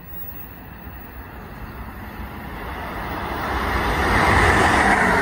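Amtrak passenger train behind a Siemens ACS-64 electric locomotive approaching at speed: a rush of wheels on rail and moving air that grows steadily louder, loudest about four seconds in as the locomotive draws level.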